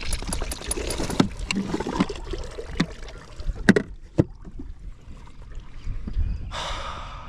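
Water sloshing around a small boat, with a few sharp knocks and bumps on the hull and a short splash-like rush near the end.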